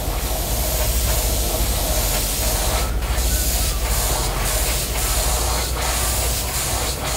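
Airbrush spraying paint with a steady hiss of air as it shades the top of a crankbait lure. A low steady hum runs underneath.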